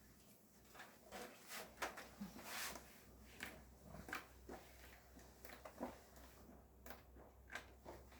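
Faint, scattered clicks and rustles of small objects being handled, with a steady low hum underneath.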